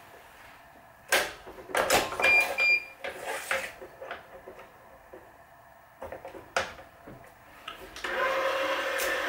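Clicks and clacks of a stringing machine's string clamp being set and locked on a racquet string, with two short electronic beeps about two and a half seconds in. Near the end, the motor of a Wise 2086 electronic tension head runs with a steady hum for about two seconds.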